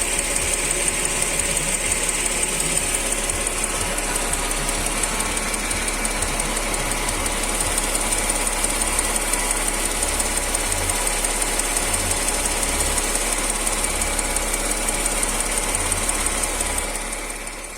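Mercedes-Benz M112 V6 engine running with a steady, rapid, ringing knock, a fault whose cause the owner has not yet found.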